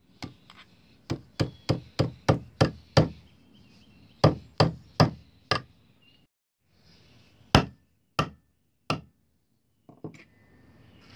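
Hammer driving a nail through sheath fabric into a wooden board: quick runs of sharp taps, about three a second, broken by short pauses, then three slower, spaced blows near the end. The nail marks where an eyelet hole will go.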